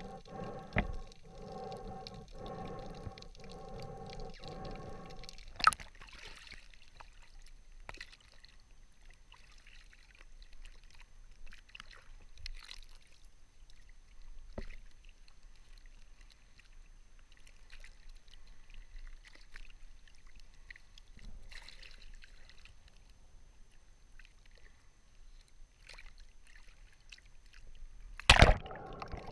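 Muffled underwater sound pulsing about every three-quarters of a second, then a sharp knock as it breaks the surface, giving way to quiet water lapping and sloshing with small splashes. Near the end comes a loud splash as it plunges back under.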